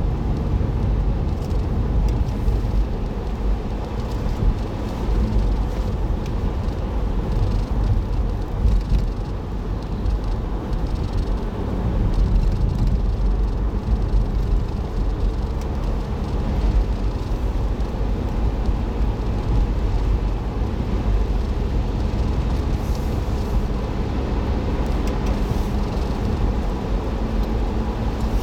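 Car driving, picked up by a dashboard drive recorder inside the cabin: a steady low rumble of tyre, road and engine noise that holds at one level.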